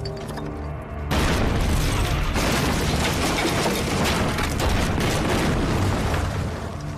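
Film battle sound: an explosion goes off suddenly about a second in, followed by several seconds of dense blast noise and crackling debris, which drops away just before the end. Music plays faintly at the start.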